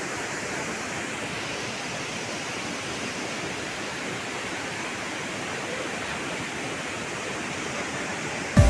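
Steady rush of a waterfall, an even roar of falling water. Just before the end it is cut off by a sudden low thump as music begins.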